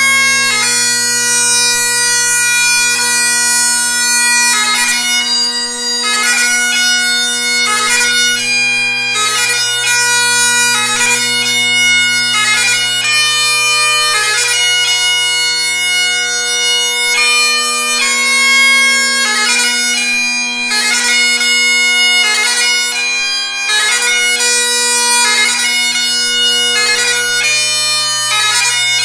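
Great Highland Bagpipe playing slow piobaireachd: steady drones beneath a chanter melody of long held notes, joined by quick grace-note flourishes.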